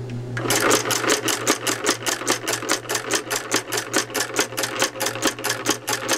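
A homemade reciprocal solenoid engine starts up about half a second in. It then runs with a fast, even clatter of several clacks a second as its armature shuttle moves back and forth between the electromagnets.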